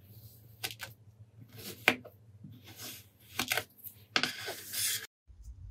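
Knife slicing through kinetic sand: a series of gritty, crunchy cuts, with a sharp click about two seconds in and the longest cut near the end, then the sound cuts off abruptly.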